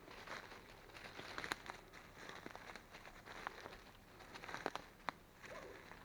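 Irregular rustling and crackling of dry leaves and twigs on the forest floor, with scattered sharp snaps.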